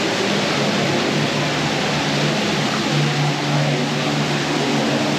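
Steady rushing, splashing water of a cave waterfall, under low held tones of the ride's ambient soundtrack that swell about three seconds in.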